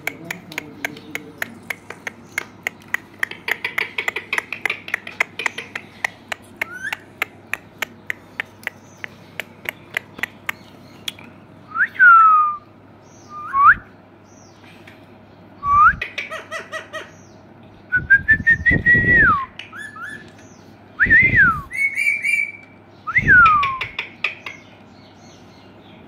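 Rapid clicking, several a second, for the first ten seconds or so, then Indian ringneck parrot whistles: a string of short 'peep' whistles falling in pitch, and one longer whistle that rises and then falls.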